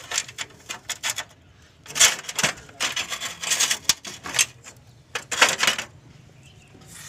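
Socket ratchet clicking rapidly in about five short bursts while bolts on the water pump pulley and fan clutch are run in.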